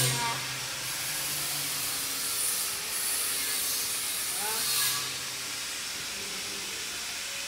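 Steady hissing factory room noise with faint voices in the background and a low hum that comes and goes.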